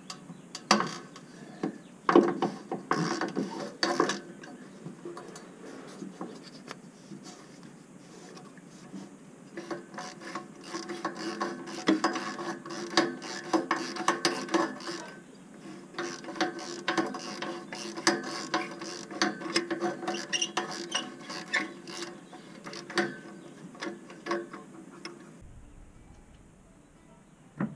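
Wrench ratcheting on exhaust manifold bolts as they are loosened: long runs of quick metallic clicks in spells, with a few louder knocks in the first few seconds. The clicking dies away near the end.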